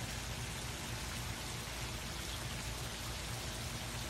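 Pool fountain jet splashing steadily onto the swimming-pool surface, a constant rain-like patter over a low steady rumble.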